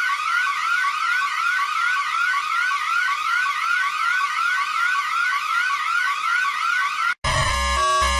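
Electronic emergency alert siren tone: a rising sweep repeating about three times a second. It cuts off abruptly about a second before the end, and music with a beat follows.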